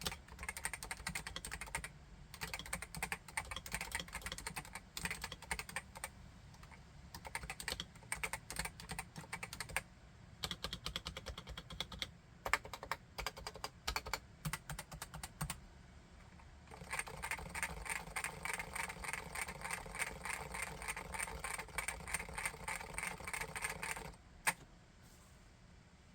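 Typing on a Realforce RGB TKL keyboard with Topre electrostatic capacitive switches (45 g uniform): runs of keystrokes broken by short pauses, then a long fast steady run of keys about two-thirds of the way through, ending with a single keystroke near the end.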